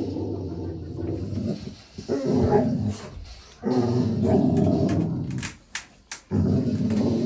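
A dog vocalizing in long, low howl-like calls, several in a row with short breaks between them.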